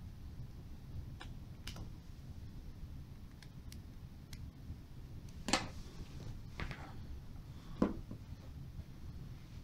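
Scattered sharp clicks and taps of small parts and a tiny screwdriver being handled while working on an iPhone 4 back panel. They are light at first, with two louder clicks a little past halfway and about three-quarters through, over a steady low hum.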